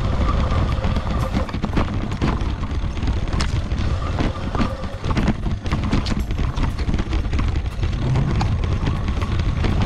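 Electric mountain bike riding along a forest dirt trail: wind buffeting on the action camera's microphone, with frequent clicks, knocks and rattles as the knobby tyres roll over roots and stones.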